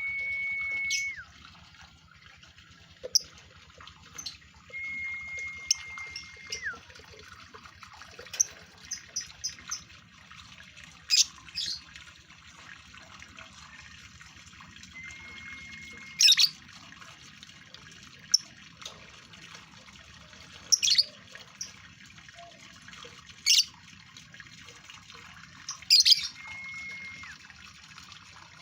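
Male lovebird in breeding condition calling: short, sharp, high chirps at irregular intervals, some in quick clusters. About four times a held high whistling tone sounds for a second or two and ends by sliding down.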